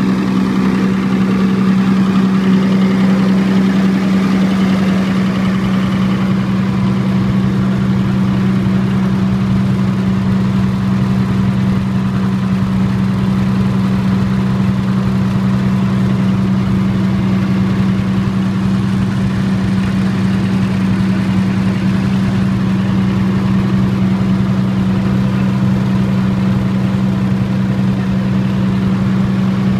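Diesel generator set running steadily at constant governed speed on a blend of diesel and natural gas through a dual-fuel kit, an even, loud engine hum that does not change.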